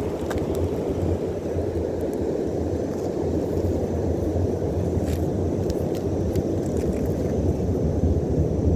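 Steady low rumble of wind buffeting a phone's microphone, with a few faint clicks of shells being picked up from the sand.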